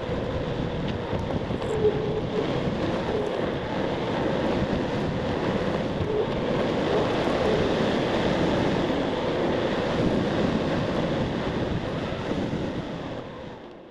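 Wind buffeting the microphone of a bicycle rider coasting at speed downhill, mixed with tyre rumble. It fades out near the end.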